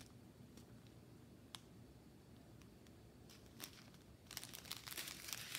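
Small plastic bags of diamond-painting drills being handled: a few faint ticks, then plastic crinkling from about four seconds in.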